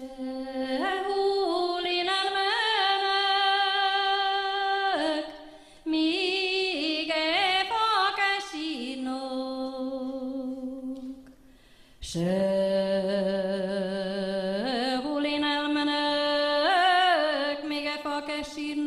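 A woman singing a Hungarian folk song alone, without accompaniment, in slow, long-held notes with ornamented turns. She pauses between phrases about five seconds in and again near twelve seconds.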